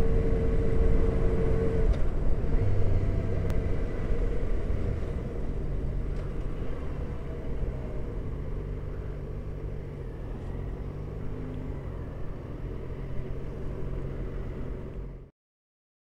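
Motorcycle engine running with a steady low rumble that slowly gets quieter, then cuts off suddenly near the end.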